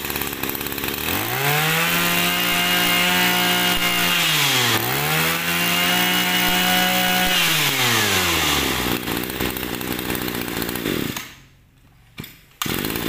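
Small 20cc two-stroke brush cutter engine running: it idles, is revved up and held at a steady high speed, dips for a moment and is revved and held again, then drops back to idle. It stops briefly near the end.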